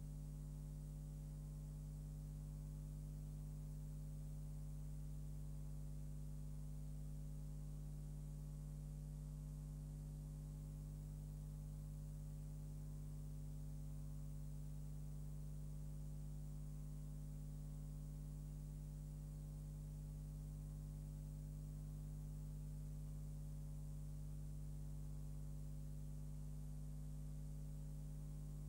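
Steady electrical mains hum with faint hiss, unchanging throughout; no other sound.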